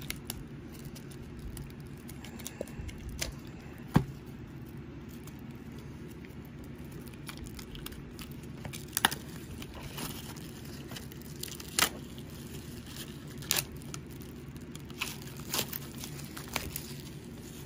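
Plastic shrink wrap being torn open and peeled off a Blu-ray case, crinkling with sharp crackles every second or two over a steady low hum.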